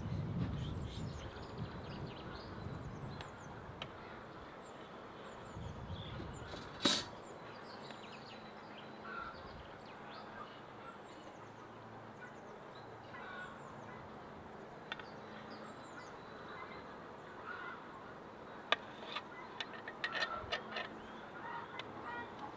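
Outdoor ambience of birds chirping and calling throughout, with one sharp knock about seven seconds in and a cluster of small clicks and knocks near the end.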